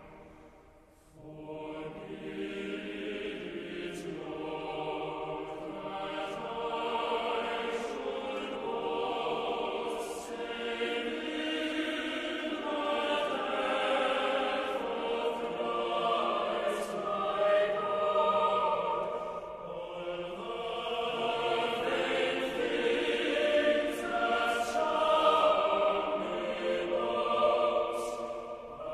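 Choir singing a hymn, several voices together in phrases that swell and fall; the singing starts about a second in after a brief pause.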